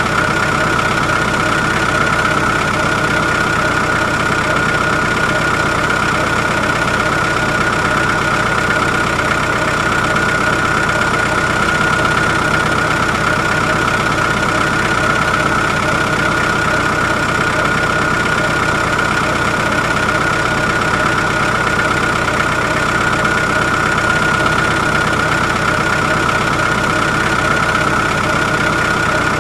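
A motor running steadily without a break, with a high, even whine over a constant rumble.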